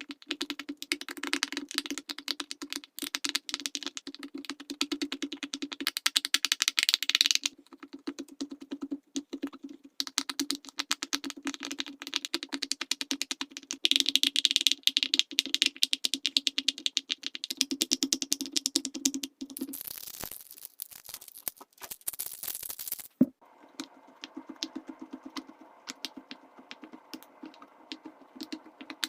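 Silicone pop-it fidget toy bubbles pressed in quick succession, a fast run of soft pops. About two-thirds through, a short hissy rubbing sound interrupts the pops, which then carry on quieter and at a different pitch.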